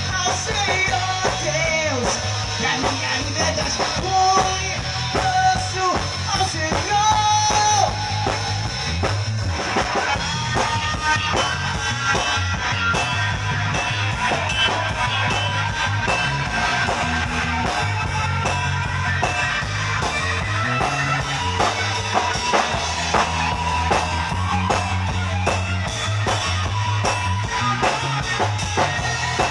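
A rock band playing: guitar over bass and a drum kit with a steady beat, with no lyrics in this stretch.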